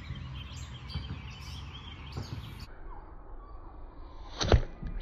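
Songbirds chirping and singing over a steady low rumble, then a sharp knock about four and a half seconds in and a lighter one just before the end.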